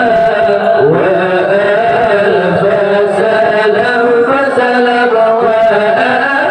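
A group of male voices chanting Acehnese zikir, singing long, drawn-out melodic lines with slow bends in pitch.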